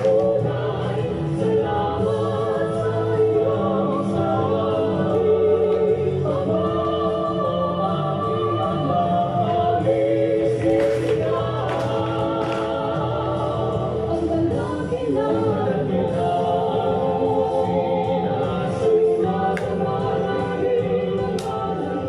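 Background music with choral singing, gospel in style.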